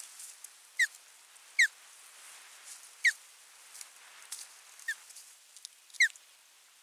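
Osprey giving five short, shrill whistled calls, each falling in pitch, irregularly spaced over several seconds. Faint clicks come in between the calls.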